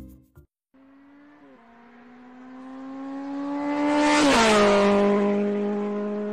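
Electric treadmill motor whining steadily as the belt runs, with a hiss that swells to its loudest about four seconds in, when the whine's pitch drops slightly and then holds.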